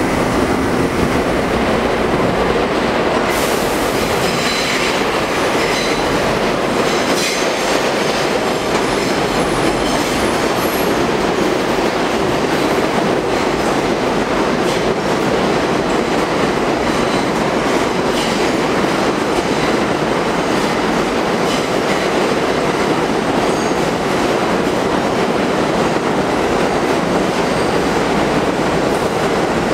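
A New York City subway train pulling into an underground station and rolling along the platform. Its wheels rumble and clack steadily over the rail joints, with some wheel squeal.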